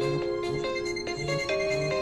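Nokia 6288 mobile phone playing a ringtone melody: electronic, synthesized tones with several parts at once, a melody of short notes changing every fraction of a second over a pulsing bass line.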